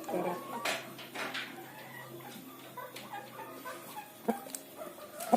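A rooster clucking in short, soft calls, its breathing free of the snoring rattle of 'ngorok' respiratory illness after treatment. Two sharp knocks near the end, the second the loudest.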